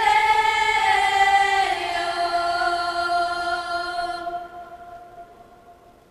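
School choir singing a held chord. The chord changes about a second and a half in, then dies away near the end.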